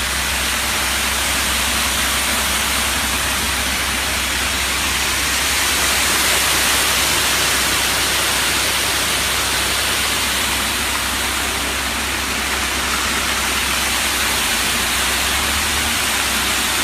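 Ready-mix concrete truck running during a concrete pour: a steady, loud rushing noise with a low hum underneath.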